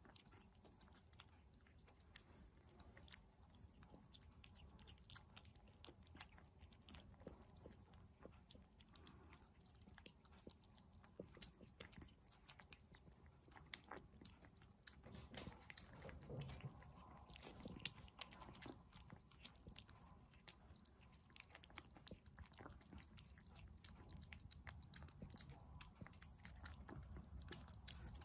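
Two kittens eating wet cat food off cardboard: faint, irregular chewing and wet clicking of small mouths.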